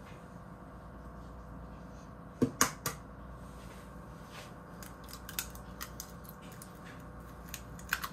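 An egg being cracked: three sharp knocks as the shell is tapped, then a run of small clicks and crackles as the shell is pulled apart and the egg drops into a small bowl.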